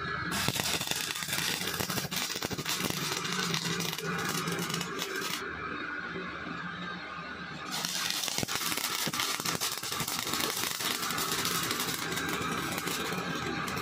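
Stick-welding arc crackling and hissing steadily as an electrode lays weld into the break of a rear axle shaft. The crackle turns duller for about two seconds in the middle, then comes back.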